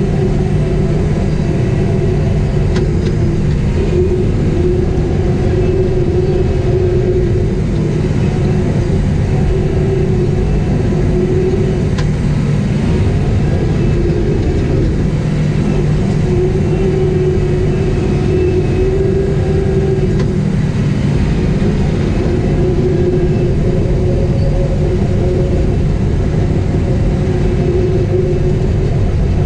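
Caterpillar 973C track loader's diesel engine running steadily while working, heard from inside the cab: a loud, continuous low drone with a mid-pitched tone that wavers slightly up and down.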